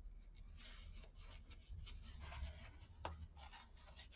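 Faint rubbing and scratching of paper and card being handled and smoothed by hand, with one sharp tick about three seconds in.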